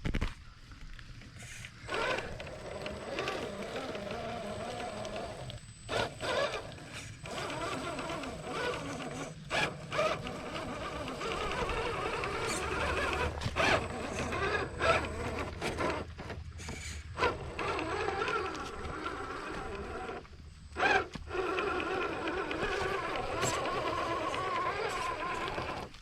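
Traxxas TRX4 Sport RC crawler's electric motor and gears whining as it drives, the whine rising and falling and cutting out briefly a few times, with sharp clicks in between.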